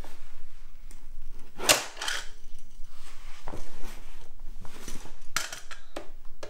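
Plastic toy playset and mini monster truck toys being handled and shifted on a table: a scatter of short clicks and knocks, the loudest about two seconds in.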